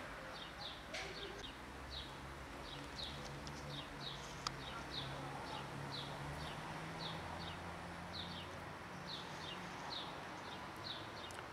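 A small bird calling over and over, short high falling chirps about twice a second, over a low steady hum.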